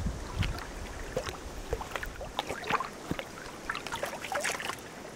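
Small waves lapping and splashing right at the lake's surface, in irregular little splashes, with a low wind rumble on the microphone that dies away in the first half-second.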